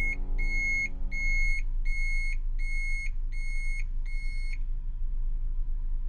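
AI backup camera's obstacle alarm beeping: a steady series of short high beeps, about one and a half a second, warning of a pedestrian detected in the danger zone behind the car. The beeps stop about four and a half seconds in.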